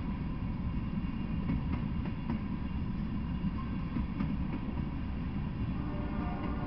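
Freight train of tank cars rolling past: a steady low rumble of wheels on the rails, with a few faint clicks.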